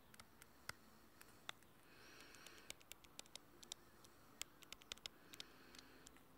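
Faint scratchy strokes and scattered light clicks from writing on a phone's touchscreen, in near silence.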